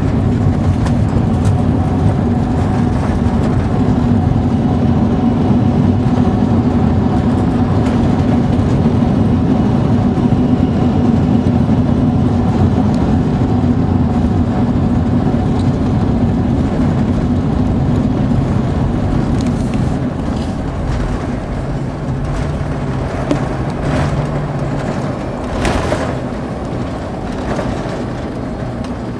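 Steady drone of an airliner cabin while the plane descends to land: jet engines and rushing air. It eases off somewhat about two-thirds of the way in, and a few short knocks follow.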